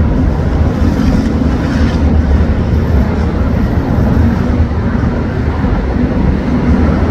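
Diesel railcar engine running with a steady, loud low rumble and a held engine note as the train moves along the track.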